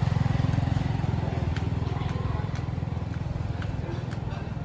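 An engine running with a fast low throb that slowly grows fainter.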